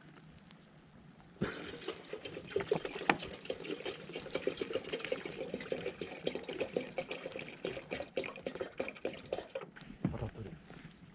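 Water pouring and splashing, a steady crackly splashing that starts suddenly about a second and a half in and stops suddenly near the end, lasting about eight seconds.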